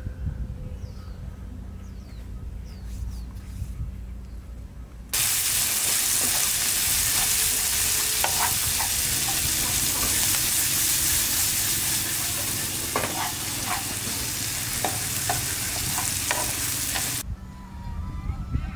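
Food stir-frying in a pan over a gas burner: a loud, steady sizzle that starts abruptly about five seconds in and cuts off near the end, with occasional clinks of a utensil against the pan. Before it, quieter outdoor sound with a few faint bird chirps.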